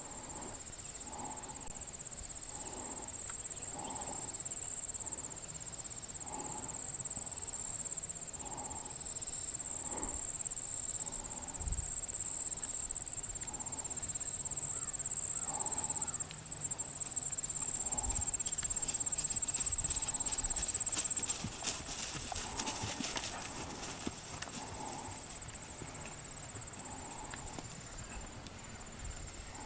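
A horse's hooves clip-clopping at a steady, even walk, about one hoofbeat a second, under a steady high-pitched whine.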